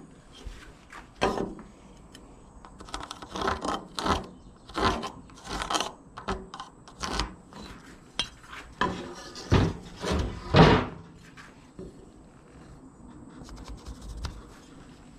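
Marking tools handled against a wooden 4x4 post: a run of about a dozen separate knocks and metallic clinks, the loudest about two-thirds of the way through.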